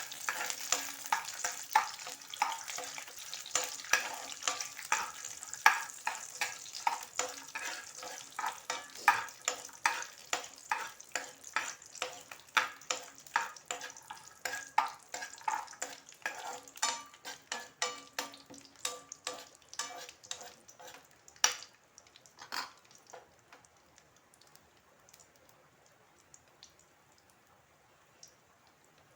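Chopped almonds frying in ghee in a non-stick pan: a sizzle with repeated scrapes and taps of a spatula stirring them, about two a second. The stirring stops about three-quarters of the way through, leaving only a faint sizzle.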